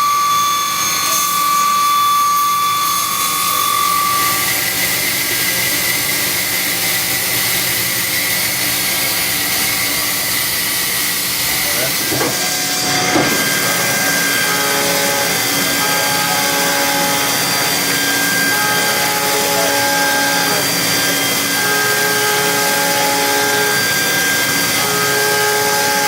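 A five-axis CNC mill cutting, with a loud, steady hiss and a machining whine on top. The whine fades about four seconds in. After a brief clack about halfway through, pitched tones start and stop in a repeating pattern.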